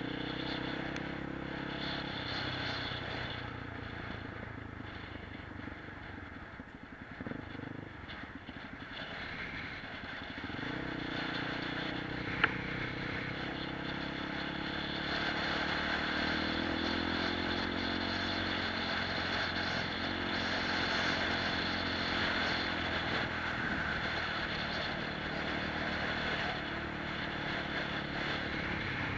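Motorcycle engine running under way, heard from a camera on the bike, its note falling and rising with the throttle and gear changes, over road noise from the tyres on a loose dirt track. One sharp knock about twelve seconds in.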